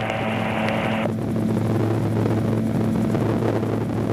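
AutoGyro MTO Sport gyroplane in level cruise flight: the pusher engine and propeller run with a steady drone, with wind and rotor noise, heard from the open cockpit. A hiss over the drone stops suddenly about a second in.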